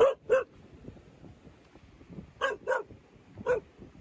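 Dog barking: five short, sharp barks, two in quick succession at the start, two more about two and a half seconds in, and one more a second later.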